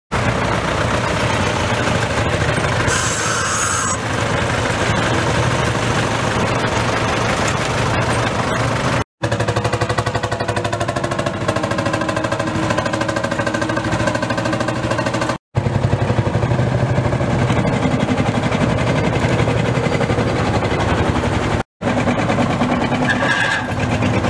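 Vintage farm tractor engines running as the tractors drive slowly past, a rapid, even beat of firing strokes. The sound breaks off for a moment three times as one tractor gives way to the next.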